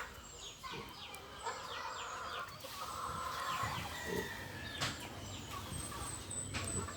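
Chickens clucking, with a string of short calls and small chirps.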